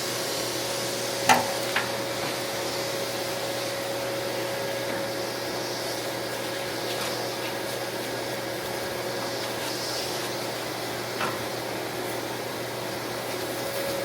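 Steady mechanical hum with one held tone, with two sharp knocks about a second in and a fainter knock later.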